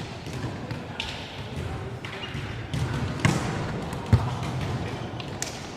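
Basketball bouncing on a gym floor, with two louder thumps about three and four seconds in, over background chatter.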